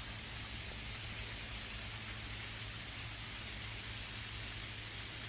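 Steady hiss of rain, an even noise with no separate drops or knocks standing out.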